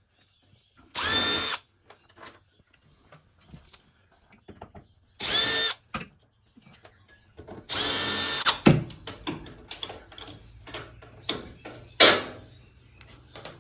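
Cordless electric screwdriver whirring in three short bursts, the last and longest about a second, as it backs long screws out of a TV's back panel. Between and after the bursts come several sharp clicks and knocks, one loud knock near the end.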